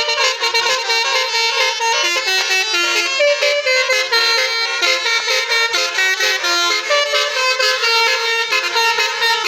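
Indonesian telolet bus horn: four Basuri multi-tone musical air horns sounding together, playing a continuous run of stepping notes in a jingle-like melody.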